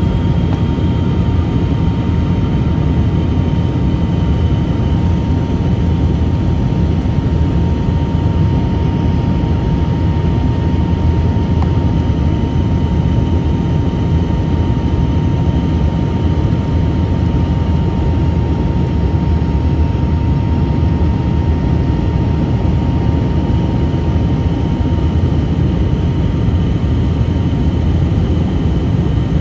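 Steady jet-engine and airflow noise heard inside an airliner cabin: a constant deep rush with a thin, even whine running over it.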